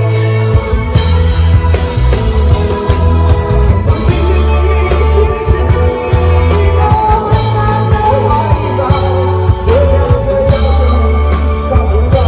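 Rock band playing loud live, with heavy bass, a drum kit and electric guitar under a singing voice.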